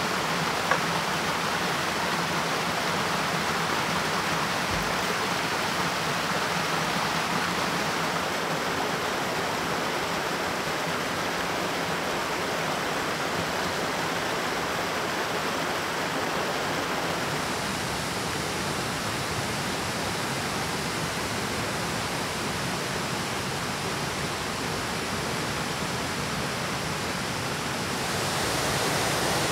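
Steady rushing of water pouring over a small river waterfall, an even, unbroken wash of sound that grows a little louder near the end. A single brief click sounds near the start.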